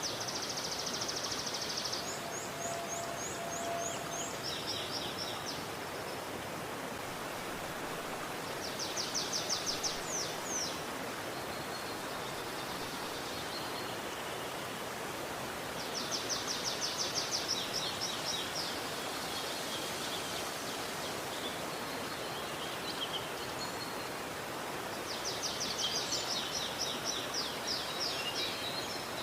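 River water flowing with a steady rush. Over it, a small bird sings rapid high trills in bouts of one to three seconds, about four times.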